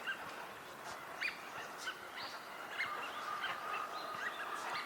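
Eurasian wigeon drakes whistling: a string of short, high whistled calls, each rising and falling, repeated every half second or so.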